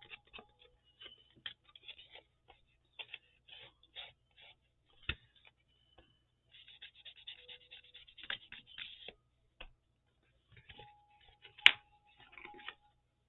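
Paper and craft supplies being handled on a work table: scattered light rustles and taps, a longer patch of rustling in the middle, a dull tap about five seconds in and a sharp click about three-quarters of the way through.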